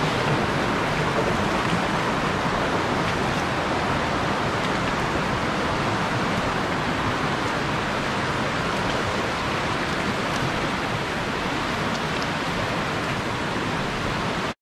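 Mountain stream rushing over rocks: a steady, even roar of white water that cuts off abruptly at the end.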